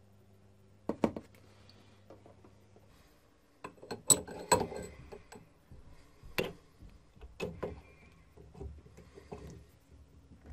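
Scattered sharp metal clicks, clinks and knocks from handling parts at a small antique metal lathe, as a brass rod is fitted into its three-jaw chuck. The lathe is not running.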